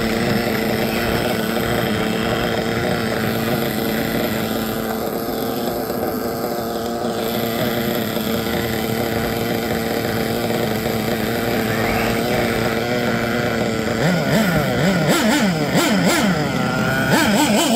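Nitro glow engine of a Serpent Cobra 1/8-scale RC buggy idling steadily. About two-thirds of the way through it is revved in quick rising and falling blips of the throttle.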